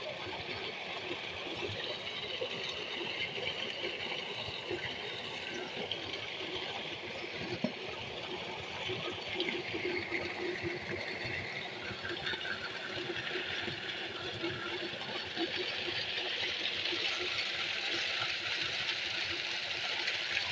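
Heavy stream of water gushing from a tube-well pump's PVC discharge pipe into a concrete tank, with the pump's engine running steadily beneath it; the rush grows a little louder over the last few seconds.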